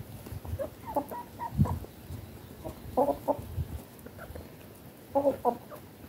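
Chickens clucking as they peck at food: short clucks in little clusters about a second in, at three seconds and again near the end, with a few low thumps between them.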